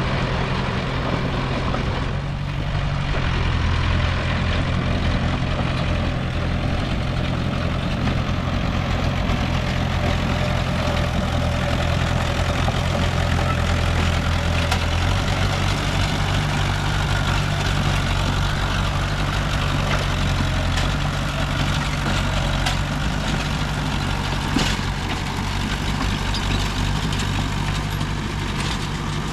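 Heavy-equipment diesel engine running steadily, its pitch shifting about halfway through, with a single sharp knock near the end.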